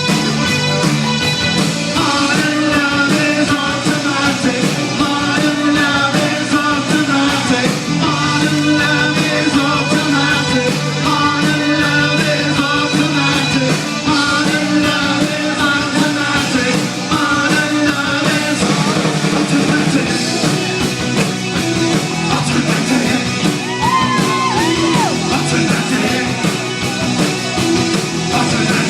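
Rock song with a singing voice over guitar and bass, loud and continuous.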